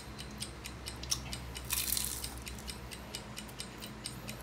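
Close-up chewing of crisp, hard fried pork spring rolls (lumpiang shanghai): a quick run of small crunches and clicks, with a louder burst of noise about two seconds in.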